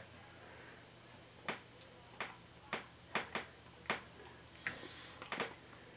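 Mouth sounds of someone tasting sticky peanut butter off a spoon: about eight small, sharp lip smacks and tongue clicks at irregular spacing.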